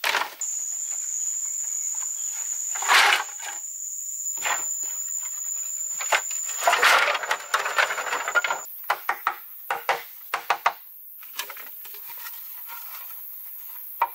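A jungle insect, such as a cicada, holds one steady high whine until about two-thirds of the way through. Over it are knocks and two louder clatters of bamboo and wood being handled, the first about three seconds in. In the last third comes a run of quick sharp taps of wood striking bamboo.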